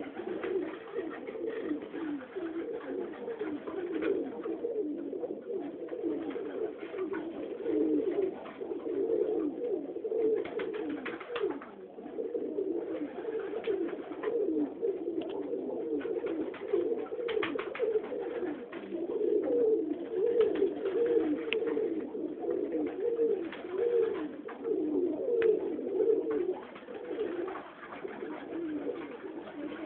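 A flock of Budapest highflyer pigeons cooing together in a loft, their low coos overlapping into a continuous chorus, with occasional short clicks.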